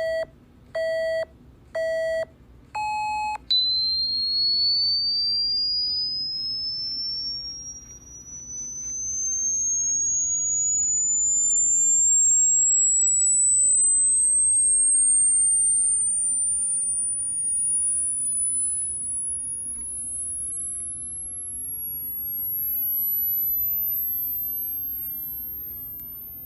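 Hearing-test tones: three short electronic beeps a second apart and a fourth, higher beep as a countdown, then a pure sine tone that starts as a high whistle and glides steadily upward in pitch toward the top of human hearing, testing how high the listener can still hear.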